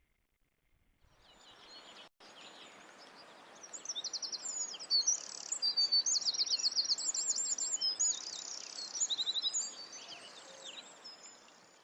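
Birdsong: rapid high trills and chirps that build up, are loudest in the middle and fade out near the end, over a steady hiss.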